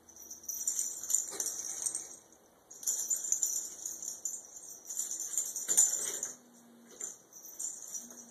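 Small jingle bell rattling in three bursts of one to three seconds as a kitten plays.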